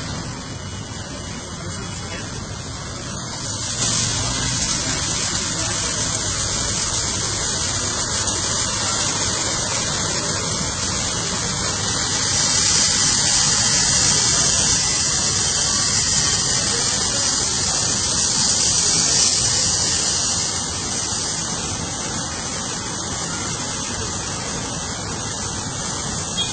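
Automatic rollover car wash running, its rotating brushes scrubbing a car under water spray: a steady rush of spray and brush noise. It grows louder about four seconds in, with a stronger hiss of spray from about twelve to twenty seconds in.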